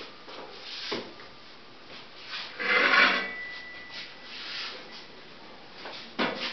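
Wooden screen-printing frames being handled on wooden shelving: irregular scraping and rubbing of wood on wood, loudest about three seconds in, with a sharp knock near the end.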